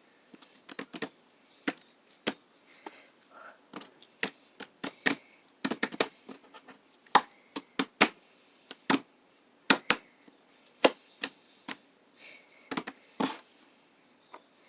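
Slime being squeezed and pulled by hand, making irregular sharp clicks and pops, with a few faint soft squishes between them.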